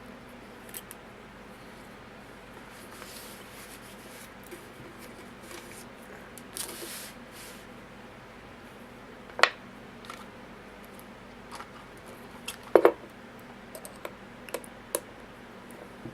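Small metal tools and a padlock being handled on a work surface: faint scraping, then a handful of sharp clicks and taps, the loudest two about halfway and two thirds of the way through.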